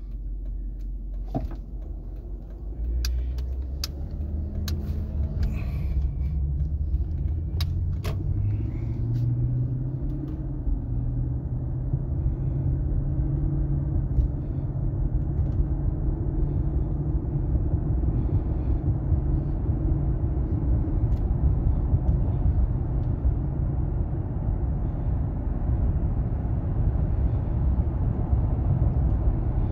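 Cabin sound of a Lexus LS460 pulling away from a stop: the V8's low hum rises in pitch over several seconds, then settles into a steady low road and tyre rumble while cruising on newly fitted 20-inch wheels. A few light clicks come in the first seconds.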